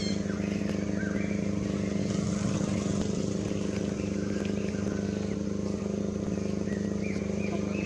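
Steady low motor hum, as of an idling engine, unchanging throughout, with scattered short high chirping calls over it.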